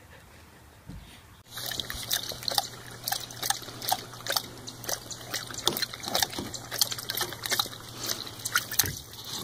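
A dog and a baby lapping water from a plastic bowl: quick, irregular wet smacks and splashes, several a second, starting about a second and a half in.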